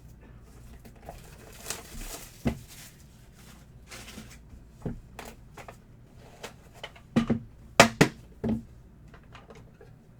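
Hands opening a trading-card box and its packaging on a table: scattered clicks, a crinkle of wrapping and sharp knocks of cardboard, with a cluster of louder knocks late on.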